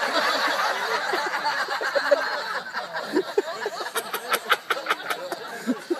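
A group of onlookers laughing, then a quick run of sharp smacks in the second half.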